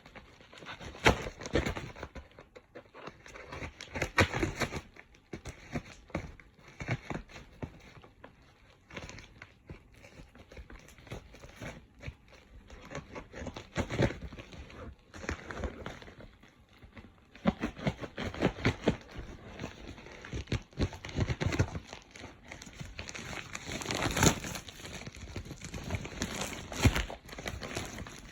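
A cardboard shipping box being opened and handled by hand: irregular crinkling and rustling of packaging with scattered knocks and bumps.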